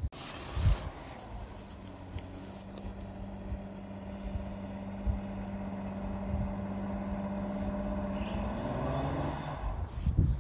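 A motor vehicle's engine running steadily and growing gradually louder, its pitch rising near the end.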